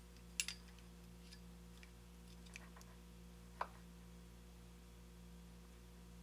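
A few faint, small metal clicks of a digital caliper's steel jaws and a drill bit being handled during a measurement, the loudest a double click about half a second in and another about three and a half seconds in, over a steady low hum.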